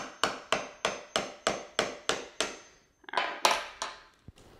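Hammer tapping a screwdriver into the eye of a coconut to punch a drainage hole: quick, even knocks about three a second, then a brief pause and a short flurry of harder knocks about three seconds in.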